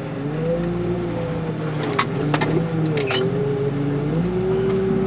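Hydraulic car crusher running under load as its lid presses down on a pickup truck, the machine's hum wavering up and down in pitch and settling steady near the end. A few sharp cracks of crumpling metal come about two and three seconds in.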